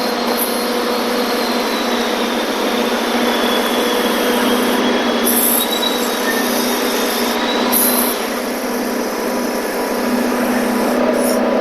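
Forklift engine running steadily, with a steady low hum and a thin high whine that wavers and fades out about eight seconds in.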